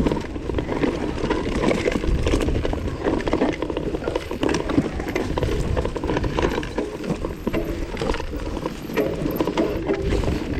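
Vitus mountain bike ridden over rough trail: continuous irregular rattling and knocking as the tyres hit rocks and roots and the chain and frame clatter, over a low rushing noise.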